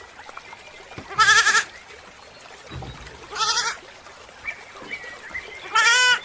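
Goat bleating: three short, quavering bleats about two seconds apart.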